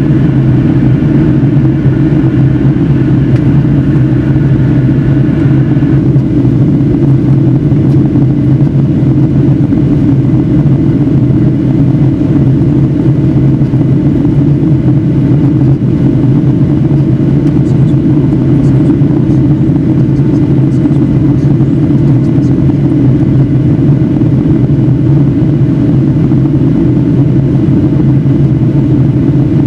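Steady engine and airflow drone inside the cabin of a Boeing 757-300 in flight, heard from a window seat over the wing. A fainter higher tone in the drone drops out about six seconds in.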